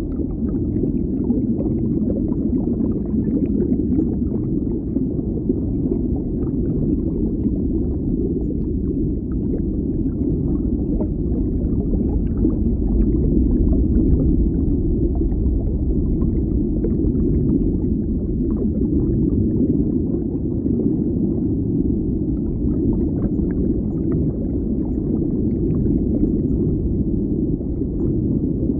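Underwater ambience: a steady, muffled low rumble with faint scattered crackles, with no distinct calls or events.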